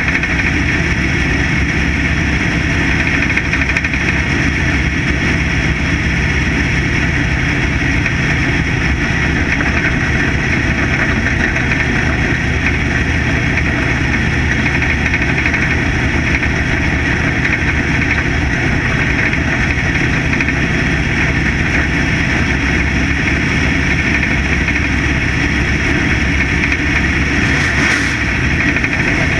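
Dirt-track factory stock race car's engine running hard at racing speed, heard from a camera mounted on the car: a loud, steady drone that hardly changes.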